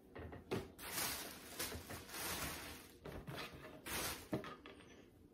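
Clothes being handled: a T-shirt folded and set down, then the next garment pulled from a black plastic bag, in a run of irregular rustles and crinkles.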